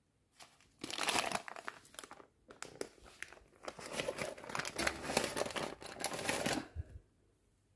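Baking paper crinkling and rustling under a pizza as it is handled and pushed into place on an oven rack, in irregular crackly bursts that start about a second in and stop shortly before the end.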